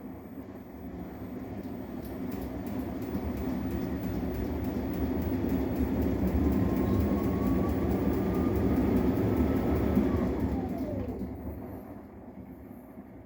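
Arçelik 10121 washing machine in its spin: the drum's rumble and motor whine build up over several seconds, then about ten seconds in the whine drops in pitch and the noise dies down as the spin winds down.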